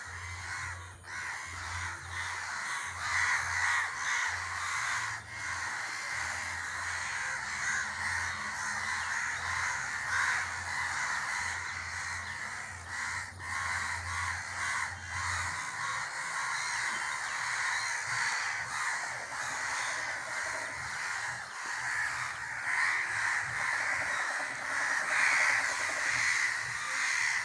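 Many crows cawing over and over, the calls overlapping into a constant din.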